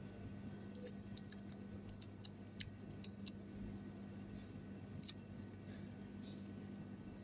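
Aluminium foil tape crinkling and crackling between the fingers as it is handled and folded against a metal reballing stencil. There is a quick run of sharp little crackles in the first few seconds and another about five seconds in, over a low steady hum.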